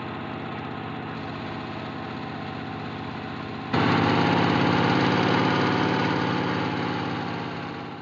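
Boat motor running steadily under way. About four seconds in, a cut brings a louder run of the motor, which slowly eases off near the end.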